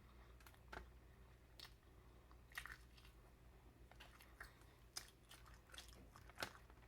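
Quiet, close-miked chewing and biting of tender turkey neck meat: scattered soft wet mouth clicks and small crunches, a few per second.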